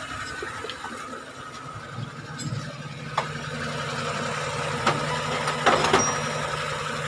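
Suzuki F6A three-cylinder engine idling steadily after new spark plugs, high-tension leads and a valve-clearance adjustment, with a few sharp clicks over it.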